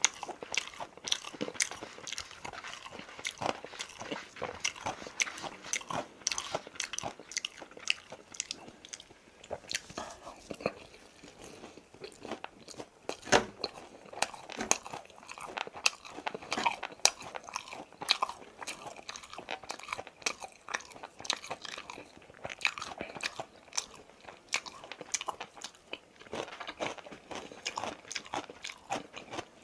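Close-up chewing and crunching of crispy boneless fried chicken: a steady run of crisp bites and chews, with one sharper knock about halfway through.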